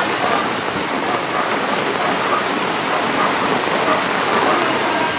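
Heavy typhoon rain and floodwater making a steady, loud rushing noise.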